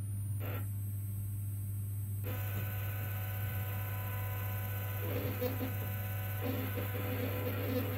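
Energised stepper motor humming steadily. From about five seconds in, a rough stepping buzz comes and goes as the motor turns its shaft in steps.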